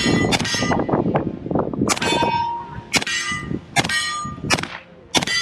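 Bullets striking steel targets, each hit giving a sharp clang that rings on and fades. A quick cluster of hits comes near the start, then about four single hits roughly a second apart.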